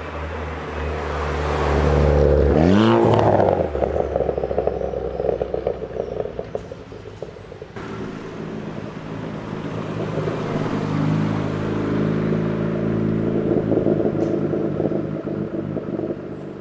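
A Ford Fiesta ST's four-cylinder engine revs up in a rising sweep, drops back and breaks into a fast, uneven crackle. A second Ford Fiesta's engine then runs up steadily as the car pulls away.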